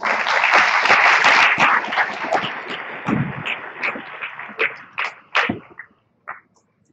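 Audience applauding, thinning out after about three seconds and dying away, followed by a few scattered knocks.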